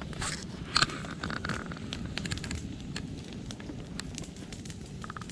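Campfire of dry branches and grass stalks crackling, with irregular sharp pops and one louder pop about a second in.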